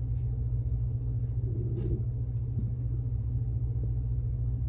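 Steady low background hum, with a few faint small clicks.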